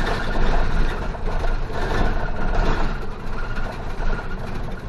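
City bus engine running with road and tyre noise, heard from inside the cabin at the front as the bus drives along.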